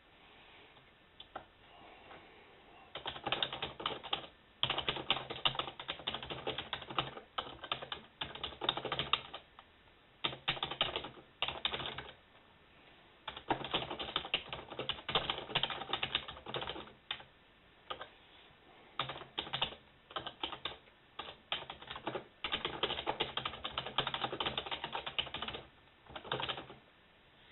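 Typing on a computer keyboard: quick runs of keystrokes in bursts of a few seconds, broken by short pauses, starting about three seconds in.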